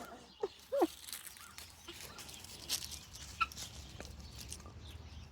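Chickens calling with short clucks, two curved calls about half a second and a second in, followed by scattered faint ticks.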